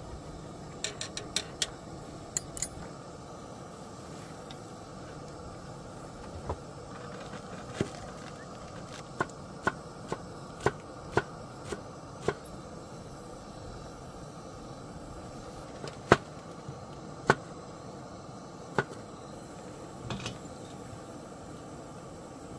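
Kitchen knife chopping vegetables on a wooden cutting board: sharp knocks, a run of them about two a second near the middle and a few single ones later. Under them runs a steady hiss, and a few light clicks sound near the start.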